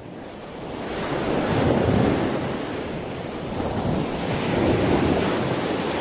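Sea surf washing in, with wind buffeting the microphone; the waves swell about two seconds in and again near the end.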